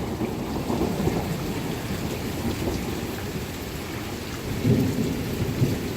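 Thunder rolling in a long low rumble over steady heavy rain, swelling again near the end.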